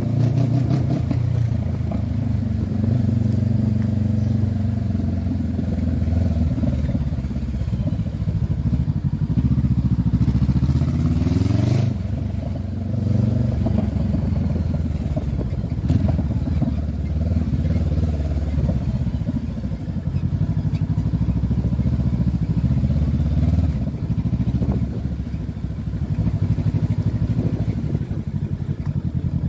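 Honda CB500F's 471 cc parallel-twin engine running under way, its pitch rising and falling as the rider accelerates and eases off, with a climb and then a drop at about twelve seconds in.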